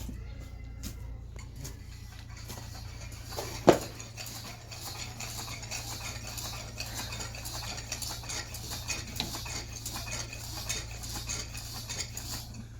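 Small hard objects clinking, rattling and scraping against one another almost without a break, with one sharp loud knock about four seconds in.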